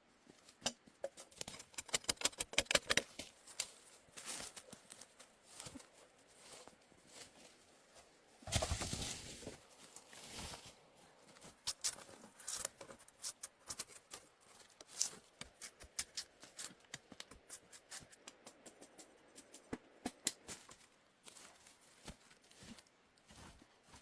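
Wood being handled and worked by hand: a run of small sharp clicks and knocks, quick in places, with a brief rasping noise about nine seconds in.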